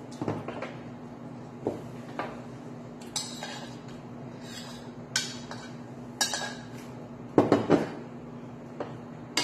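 Metal spoon and utensils clinking and scraping in a shallow aluminium pan as rice is stirred into the leftover spicy braising sauce. Scattered knocks and scrapes, with the loudest quick run of knocks about seven and a half seconds in.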